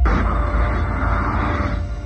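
Bugatti Veyron sweeping past at speed: a sudden loud rush of engine and wind noise that fades within two seconds, over a steady music drone.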